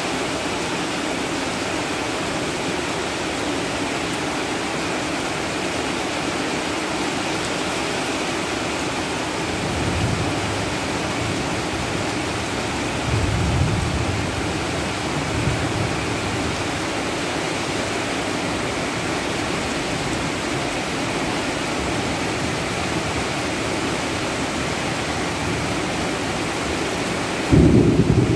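Heavy rain pouring steadily, with low rumbles of distant thunder about ten seconds in and again a few seconds later. A loud clap of thunder breaks in near the end.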